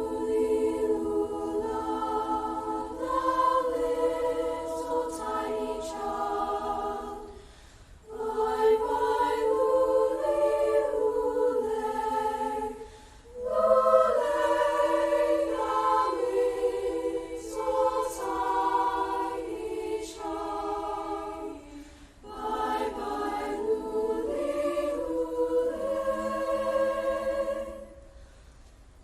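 A choir singing in sustained phrases, with brief breaks between them about 7, 13 and 22 seconds in.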